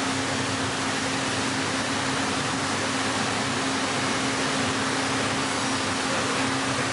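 Heller four-roll CNC plate rolling machine running as it rolls a steel plate: a steady machinery hiss with a constant low hum, no change in level.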